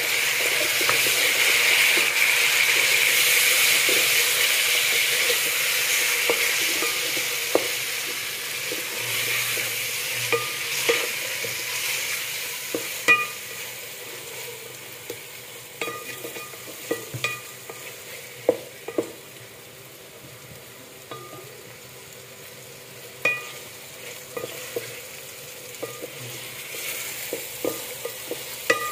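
Chopped tomatoes and green chillies sizzling as they hit hot ghee and fried onions in a metal pot. The sizzle is loudest at first and dies down over roughly the first ten seconds. After that, a wooden spatula stirs, scraping and knocking against the pot, with an occasional ringing clink.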